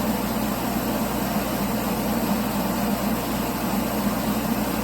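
Forced-air kerosene torpedo heater's blower fan running with a steady whir. The heater is faulty: it cycles on and off without ever staying lit.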